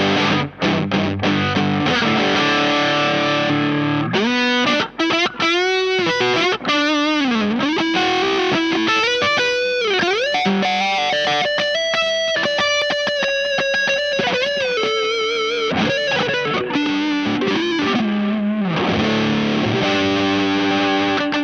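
Distorted electric guitar played through a Space Sounds Spacecraft, a Rat-style distortion pedal: chords at first, then a lead line with string bends and vibrato and some held notes, and chords again near the end.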